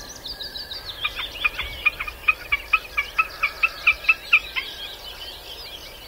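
Common snipe giving its repeated tick-tock call, an even run of short notes at about four or five a second that starts about a second in and stops a little before the end, with other small birds singing in the background.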